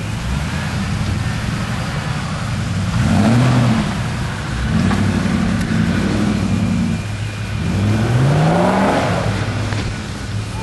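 Off-road 4x4's engine revving up and down under load as it climbs a muddy slope: three surges in pitch, the last a long rising rev, over a steady low running note.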